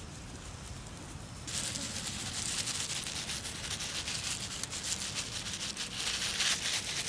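A dense, high, hissing buzz of insects, made of rapid fine pulses, starts suddenly about a second and a half in and carries on steadily.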